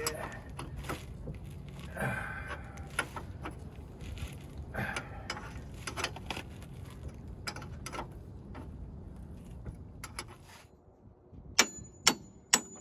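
Small metallic clinks and rattles of parts and tools being handled at a car's steering linkage, then three sharp, ringing hammer blows on the steel tie rod end and steering knuckle near the end, knocking to break the seized outer tie rod end loose.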